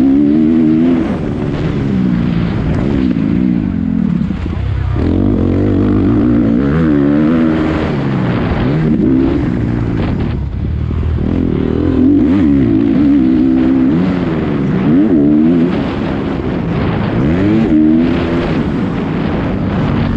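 450cc four-stroke motocross bike engine revving up and falling back again and again as it is ridden hard through corners and straights, with wind rush on a helmet camera. The throttle is shut off briefly about four to five seconds in and again about ten seconds in.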